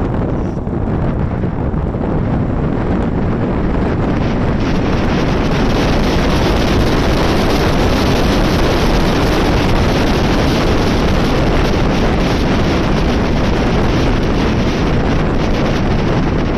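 Loud wind noise buffeting the microphone of a camera on a moving motorcycle, drowning out the bike; the rush gets louder and brighter about four seconds in.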